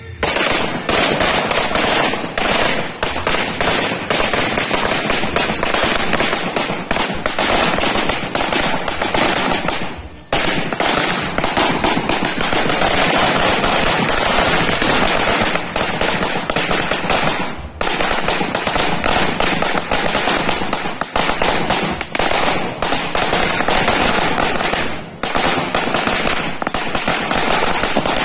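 Firecrackers exploding on the ground in a long, loud, rapid crackle of overlapping bangs, dipping briefly three times before carrying on.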